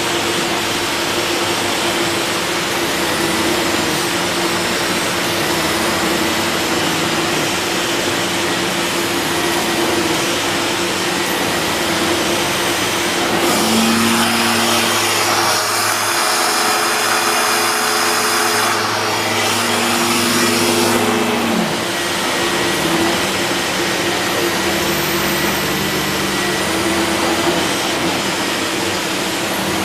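Lux D790 Royal canister vacuum cleaner's 1150 W motor running steadily on maximum suction as its floor nozzle is pushed over thick carpet. For several seconds around the middle the sound turns hissier and higher while the nozzle is lifted off the carpet.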